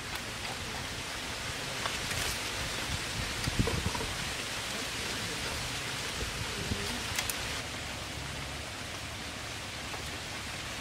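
Steady outdoor background hiss, with a few small clicks and taps from hands and pliers working on a wire fan guard.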